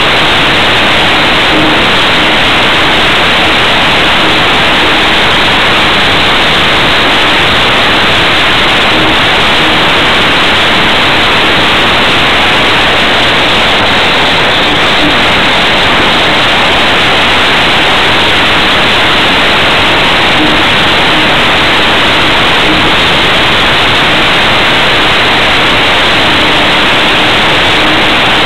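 Steady loud rushing hiss of airflow over a small camera mounted under the wing of a model aircraft in flight. A faint hum comes and goes beneath it.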